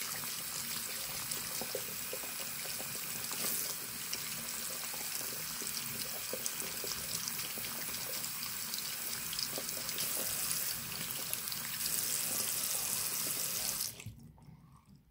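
Water running steadily from a bathroom sink faucet into the basin, splashing over a hand held in the stream, then shut off near the end.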